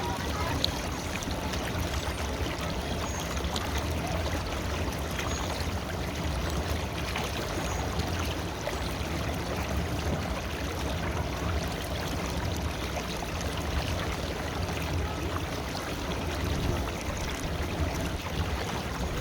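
River water flowing, a steady rushing noise with a deep rumble underneath.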